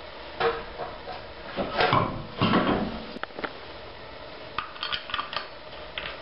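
A steel wheel being hung on the hub over a guide pin: knocks and a rubbing scrape as the wheel slides onto the hub, then light metal clicks of wheel bolts and a tool being handled.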